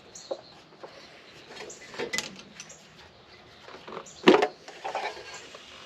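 Metal hand tools and engine parts clinking and knocking as they are handled during an engine teardown, with one louder clank about four seconds in.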